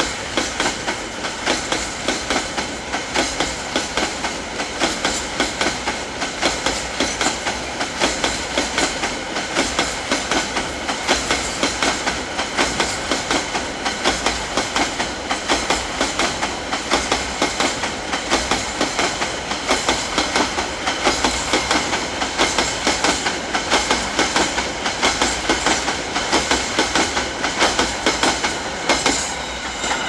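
Freight train of empty open-top coal wagons rolling past. The steel wheels clatter over the rail joints in a fast, continuous clickety-clack.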